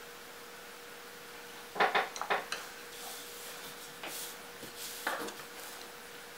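Paintbrushes clicking and knocking against the palette and tabletop as one is put down and another picked up: a quick run of sharp clicks about two seconds in, then a few softer knocks.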